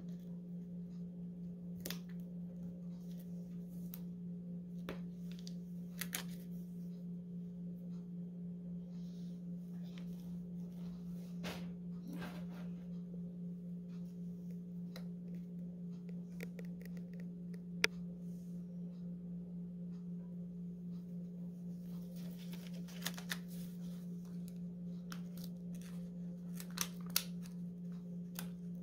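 Small scattered clicks and light rustles of plastic rhinestone gems being picked off an adhesive sheet and pressed onto a painted rock, with a few sharper ticks, over a steady low hum.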